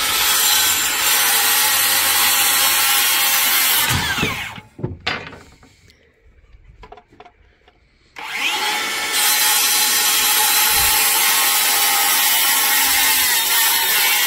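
Electric power saw cutting wood twice: the motor spins up, runs through the board for about five seconds, then winds down. After a few seconds' pause with small knocks, a second, longer cut of about seven seconds follows.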